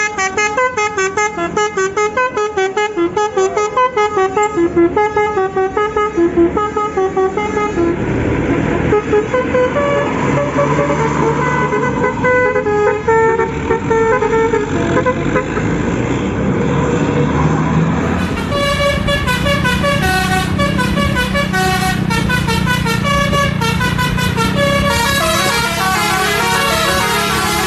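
Indonesian bus 'telolet basuri' musical horns playing quick, flute-like melodies, note after note. The horn tune changes to a different one about 18 seconds in.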